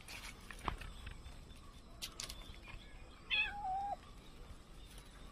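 A domestic cat meows once, a short call a little past halfway that drops in pitch at the end. A sharp click comes under a second in.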